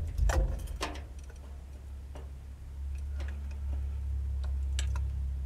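Light, scattered clicks and taps from wiring and terminals for an electric windshield wiper motor being handled, over a steady low hum.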